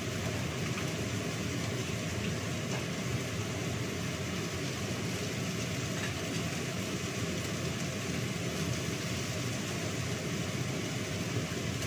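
Steady whirring hum of a kitchen range-hood exhaust fan running, with a few faint clinks near the start.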